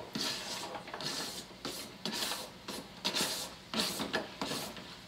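A metal spoon scraping diced onion off a flexible plastic cutting board into a Dutch oven: a run of irregular rasping scrapes.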